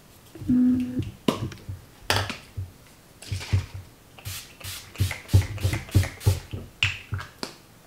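Urban Decay All Nighter setting spray pump misting a face: a series of short spritzes, several in quick succession about halfway through, with soft knocks from handling the bottle.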